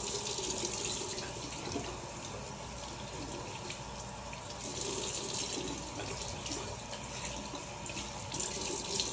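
Bathroom sink tap running steadily into the basin while the face is rinsed with water by hand.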